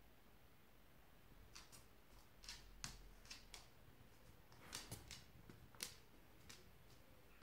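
Near silence, broken by about a dozen faint, sharp clicks and ticks, clustered in the middle of the stretch.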